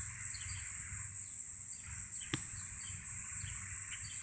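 Insects trilling steadily at a high pitch, pulsing about six times a second, with faint short chirps among them. A single sharp click sounds a little past the middle.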